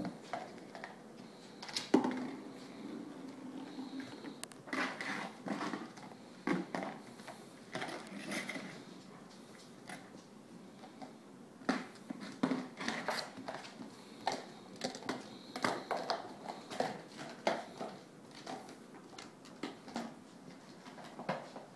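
Golden retriever puppy's claws and paws clicking, tapping and scuffling irregularly on a hard tile floor and rugs as it plays.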